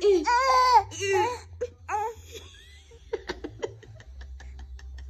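A baby making short, high-pitched squealing vocal sounds, each rising and falling in pitch, for the first two seconds or so, followed by a quick run of light clicks.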